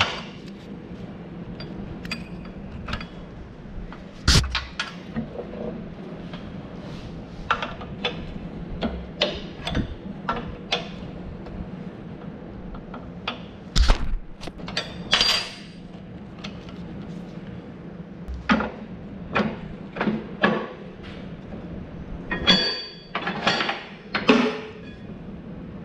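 Hand tools and steel parts as the hydraulic swing cylinder of a Vermeer TM mower is unbolted and worked free: a wrench clinking on the fittings, with scattered metal clinks and knocks. There is a sharp knock about four seconds in, another about fourteen seconds in, and a quick run of knocks near the end. A steady low hum runs underneath.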